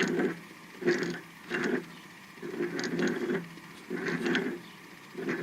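Air hammer driving a Thexton 482 fastener removal bit, fired in a series of short bursts, each under a second, to break loose a frozen or rusted fastener.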